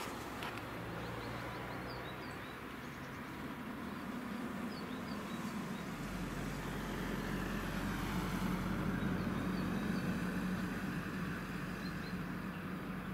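ROPA self-propelled harvester's diesel engine running steadily as the machine works its way across the field, its low hum growing a little louder partway through and then easing.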